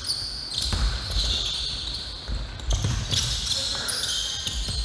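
Basketball game in a gym: a ball bouncing on the hardwood several times, sneakers squeaking, and voices in the background.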